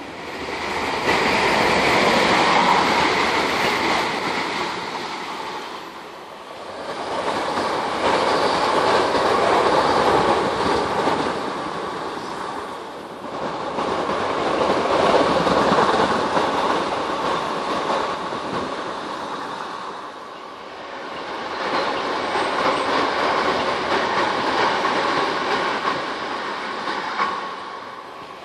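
Electric multiple-unit passenger trains running along the line below, the noise of wheels on rails swelling and fading about four times as trains pass.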